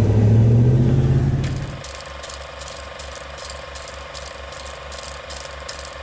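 A vehicle engine's low steady hum for the first couple of seconds, which fades out. Then an old film projector sound effect: an even, rapid clatter of about three to four clicks a second over a steady whirring tone.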